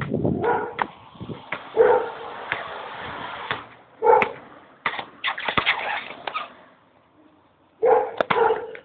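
Basketball being dribbled and bouncing on a hard outdoor court, with scattered short impacts and a few brief sharp calls, about three in all.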